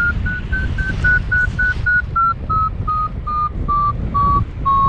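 Paragliding variometer beeping its climb tone: short beeps at about three a second that rise slightly in pitch, then drop lower and slow down over the second half, as the climb in a strong thermal eases. Wind rushing over the microphone underneath.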